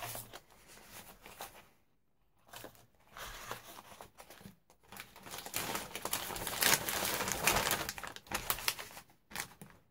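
Paper and packaging crinkling and rustling as a bag of craft papers is handled. The rustling comes in spells with brief pauses and is loudest a little past the middle.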